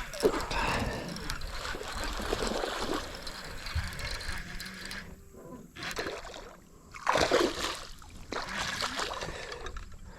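Water splashing and sloshing in uneven bursts as a small hooked bass is fought at the surface and landed, with the loudest splash about seven seconds in.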